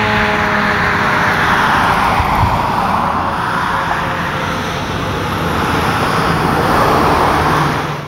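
Road traffic: cars passing, a steady rush of tyre and engine noise that eases about three seconds in and builds again near the end. At the very start the last falling tone of the tornado siren winding down fades out.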